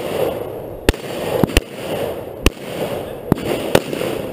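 Five gunshots from a competitor's shouldered long gun, fired at uneven intervals of under a second, with a rushing background between the shots.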